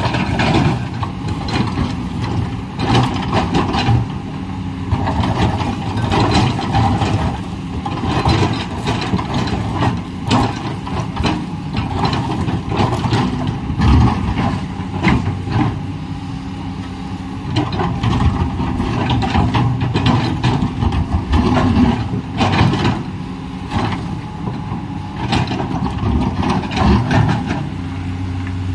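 Komatsu PC210LC hydraulic excavator working: its diesel engine running steadily, with frequent knocks and clanks throughout.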